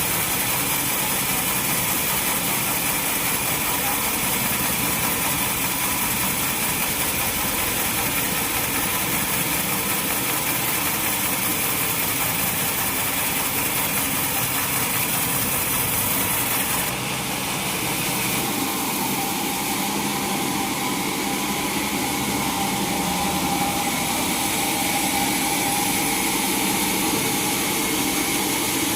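Sawmill machinery running steadily, with a change in its tone about seventeen seconds in.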